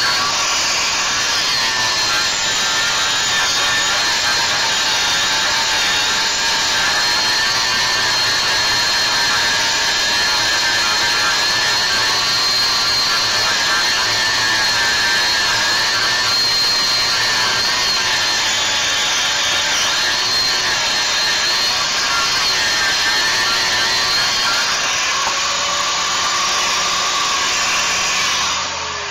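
Angle grinder grinding steel on a truck frame, a steady high whine under load that changes a little as the disc is worked. Near the end it is switched off and spins down with a falling whine.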